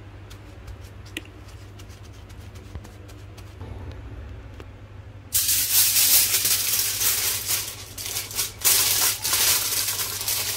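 Aluminium foil crinkling and rustling as it is folded and wrapped around a ham, starting suddenly about five seconds in, in uneven bursts of crackle.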